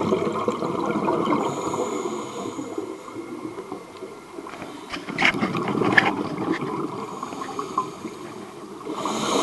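Air bubbles gurgling and rushing underwater, rising in surges, louder near the start and again around the middle with a few sharp clicks.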